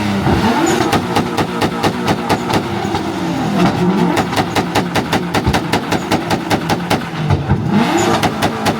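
Car engine held on a two-step launch rev limiter, cutting out in rapid, evenly spaced pops about four or five times a second, with the revs rising and falling a few times.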